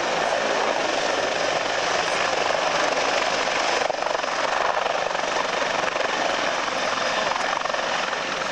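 Attack helicopter hovering low and moving just above the runway: a loud, steady noise from its turbine engines and rotor, with a brief dip about four seconds in.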